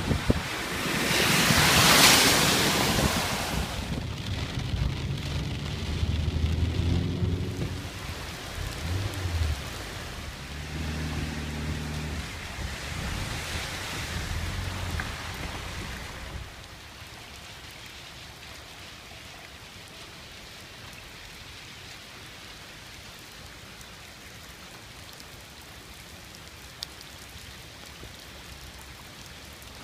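A car's tyres send up a loud rushing splash as it drives through deep floodwater, peaking about two seconds in. A low rumble follows, and from about halfway on there is only the steady hiss of rain falling on the flooded street.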